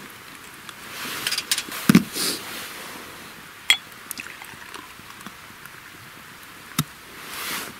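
Beer being poured from a glass bottle into a glass, with a few sharp glass clinks.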